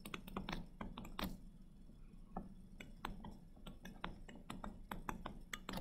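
Faint, irregular clicks and taps of a pen stylus on a tablet screen while handwriting, several a second.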